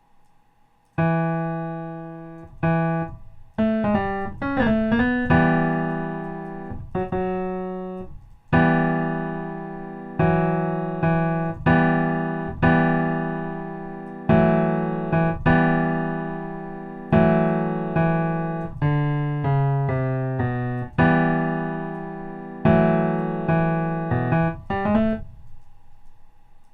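Piano chords played one after another, each struck and left to ring out, with a few quick runs of notes between them, trying out the E natural minor scale.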